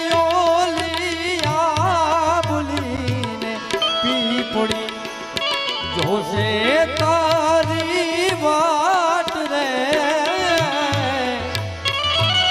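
Gujarati folk music instrumental passage: a melody with wavering, sliding pitch over a steady hand-drum rhythm.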